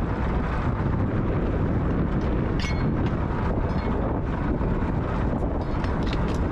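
Steady low rumble of the fishing boat's engine with wind buffeting the microphone, and a short clatter about two and a half seconds in.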